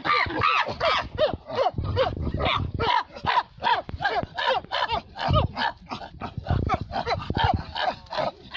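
Chimpanzees calling while they feed: a rapid string of short pitched calls that rise and fall, about three or four a second, overlapping from several animals. These are food calls of chimpanzees eating fruit together.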